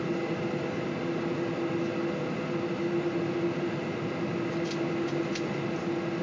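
Steady cabin noise inside a taxiing Boeing 747: the idling jet engines' hum with a steady droning tone under the hiss of cabin air. A few faint clicks come about four and a half to five and a half seconds in.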